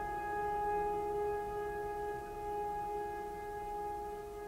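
Background music: a sustained ambient drone of several held notes, with no beat and no change in pitch.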